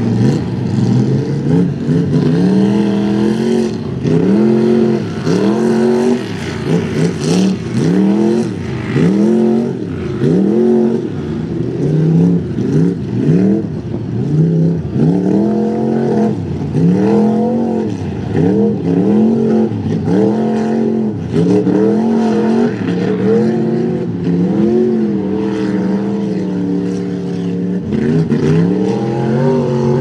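Big-block Ford V8 in an OBS Ford mud truck revving hard as it bogs through a mud pit, its pitch climbing and falling back over and over, about once a second, as the driver works the throttle with the tires spinning in the mud.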